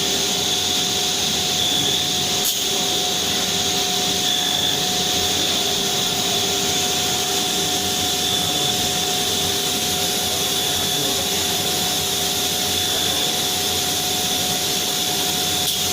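CNC machine running steadily, a constant whine of several fixed pitches over a broad rushing noise, with one brief click about two and a half seconds in.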